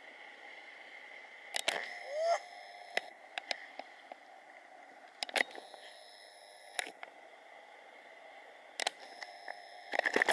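Camera handling noise: scattered sharp clicks and knocks over a steady hiss with a faint hum, and one short rising squeak about two seconds in.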